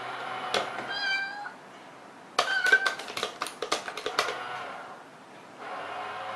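A cat coin-bank toy's small motor whirs as its toy cat pops out of the cardboard box, with a short meow about a second in. Then comes a quick run of sharp taps and clicks as the cat paws at the box lid, and the motor whirs again near the end.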